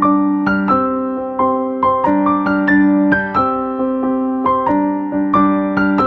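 Background music: a keyboard with a piano sound playing a gentle melody of struck notes, several a second, over lower held chords.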